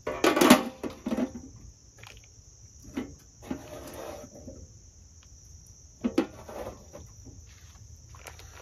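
The steel lid of a Weber Go-Anywhere charcoal grill set down onto the grill with a loud metal clatter at the start, followed by a few lighter knocks and a short rustle. A steady high trill of insects runs underneath.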